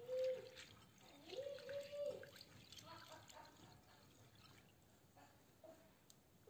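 Dried split fava beans and split peas being swished by hand in water in a glass bowl while being rinsed: faint sloshing with small clicks of beans against the glass. A few short rising tones sound in the first two seconds.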